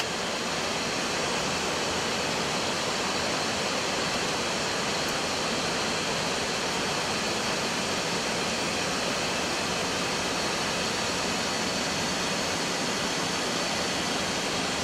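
Steady rushing noise inside an Airbus A320 cockpit in flight: an even, unchanging rush of air with no distinct tones.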